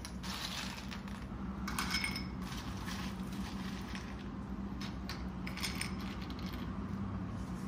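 Ice cubes clinking as they are picked by hand out of a plastic bag and dropped into a ceramic bowl, in several short irregular bursts of clinks, with the bag crinkling.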